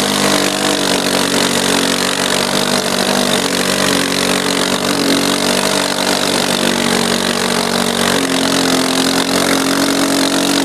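Arctic Cat 250 quad's engine running steadily under way while towing two snowboarders on ropes, its pitch shifting slightly with the throttle. A steady hiss runs over it.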